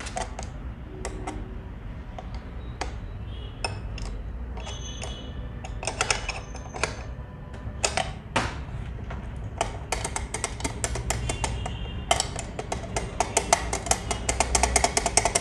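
Metal parts of an old sewing machine head clicking and tapping as they are handled and worked by hand, with scattered taps at first and then a fast run of light clicks, several a second, from about ten seconds in, as the newly fitted part is moved to check it turns freely.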